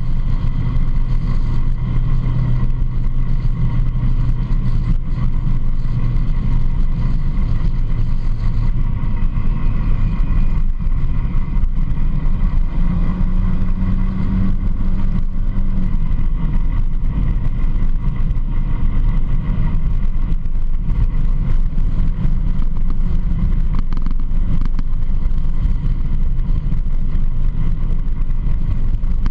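Polaris RZR side-by-side's engine running steadily while driving, with the rumble of tyres on a gravel road. The engine note lifts briefly about halfway through.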